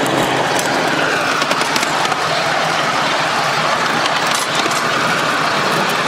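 Polly 5 5-inch gauge live steam locomotive running along the track: a steady rushing of steam and running gear with scattered light clicks.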